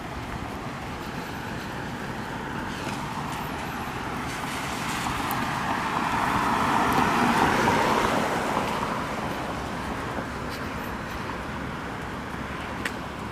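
Road traffic: a car passing, its tyre and engine noise swelling to a peak a little past halfway and then fading away.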